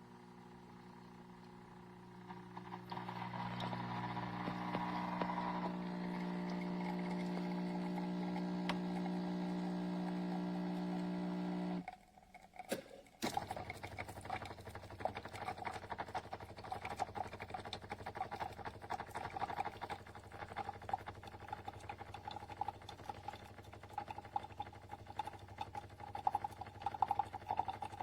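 De'Longhi La Specialista espresso machine running: a steady motor hum for about ten seconds that stops suddenly, a click, then a crackling hiss for the rest.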